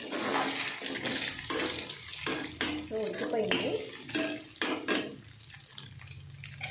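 Metal ladle scraping and clanking against a metal kadai as it breaks up and turns frying eggs, in quick irregular strokes that stop about five seconds in.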